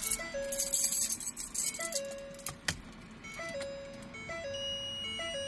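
Ford F450 dashboard warning chime sounding again and again after the ignition is switched on: each chime a short higher note dropping to a held lower one. A burst of hissing noise in the first second and a half, and a single click near the middle.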